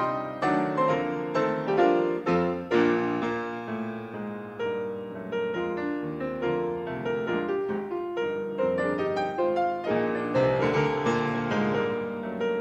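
Solo piano music, notes struck one after another in a continuous stream.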